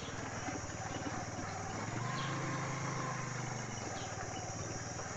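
Motorcycle engine running at low speed while riding over a rough, bumpy dirt trail, its note rising and getting louder about two seconds in, then easing off again.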